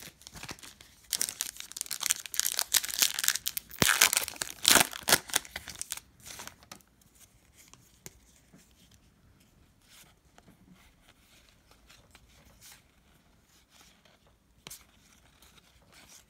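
A trading card pack wrapper being torn open and crinkled in quick crackly bursts for about six seconds. After that only faint light ticks of the cards being handled.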